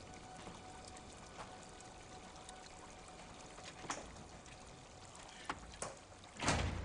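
Running water from a tiered garden fountain, a steady soft trickle and splash. A few faint clicks sound through it, and there is a brief louder rush near the end.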